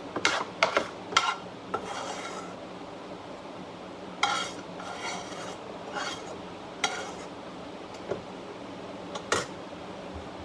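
A cooking utensil stirring and scraping in a pan: about a dozen short, irregular scrapes, with a faint sizzle under them.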